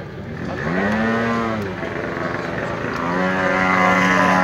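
Car engine revving at a drag-race start line: one rev that rises and falls, then about three seconds in the revs are brought up and held steady and loud, as a car is held at the line ready to launch.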